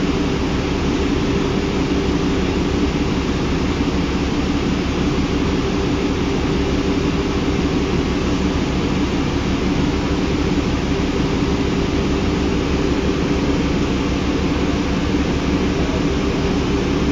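Cummins ISL inline-six diesel engine of a 2005 New Flyer D40LF transit bus running steadily, its pitch not changing.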